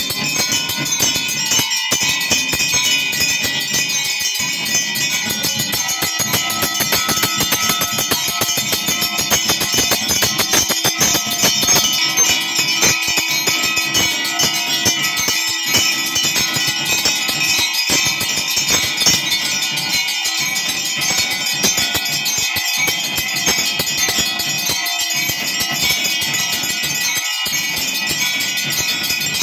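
Temple bells ringing rapidly and without pause during aarti worship, a dense metallic jangle with a few steady ringing tones.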